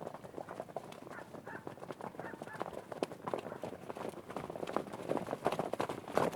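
Hoofbeats of several horses running, a quick, dense clatter of hooves that grows louder near the end.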